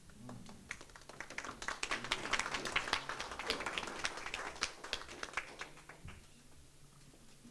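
A small audience applauding: scattered claps build up about a second in, become a dense patter, and die away around six seconds in.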